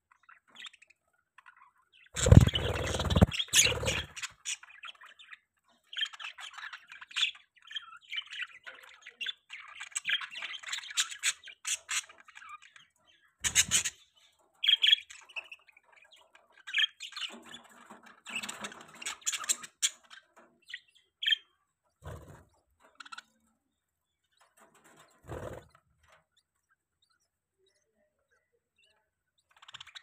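Baby budgies chirping in irregular bouts inside a nest box. A loud bump comes about two seconds in, with a few softer knocks later.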